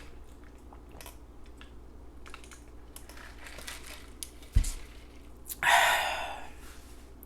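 Close-miked eating and mouth noises: scattered light clicks and smacks, a dull thump about four and a half seconds in, then a loud rush of noise lasting about a second that fades away.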